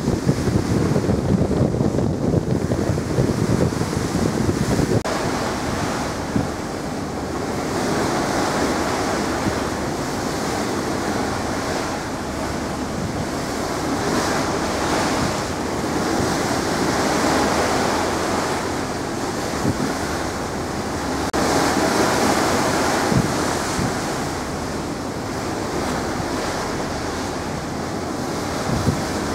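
Wind buffeting the microphone, strongest in the first few seconds, over the rushing wash of sea water along the ferry's hull, swelling and fading every few seconds.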